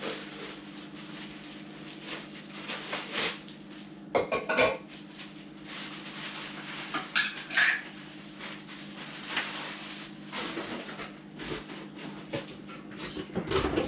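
Packaging being handled and packed back into a box: plastic rustling and crinkling, with hard pieces clattering and knocking, loudest about four seconds and seven seconds in.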